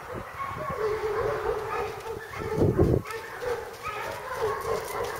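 Dog whining in long, wavering high-pitched tones, with a louder, rougher burst a little over two and a half seconds in.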